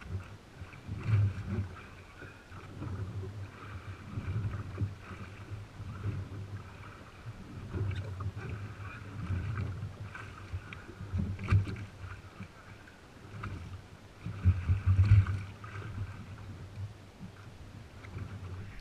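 Small waves slapping against a jet ski's hull, with wind buffeting the microphone and a few sharp knocks, the loudest about three-quarters of the way through.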